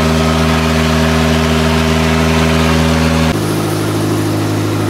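Passenger river boat's engine running steadily. About three seconds in, the note drops suddenly to a lower, slightly quieter engine sound.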